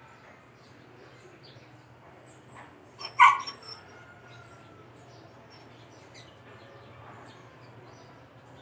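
A dog barks once, a short sharp bark about three seconds in, over a low steady hum and faint scattered chirps.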